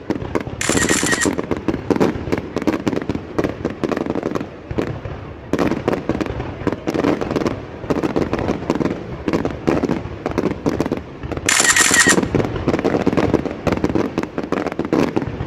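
Fireworks and firecrackers going off in a rapid, continuous string of pops and bangs. Two brief high-pitched shrieks cut through, one about a second in and one near the end.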